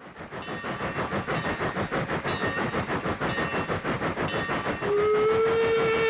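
Steam locomotive running with a fast, even chuffing rhythm. About five seconds in, its whistle starts and holds one steady tone, sliding up slightly at the start.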